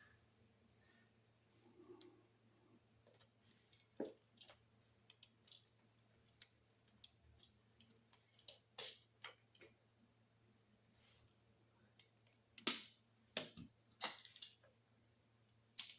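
Scattered small clicks and taps of a screwdriver, wire ends and a wall receptacle being handled and worked at close range, with the loudest clicks near the end. A faint steady low hum runs underneath.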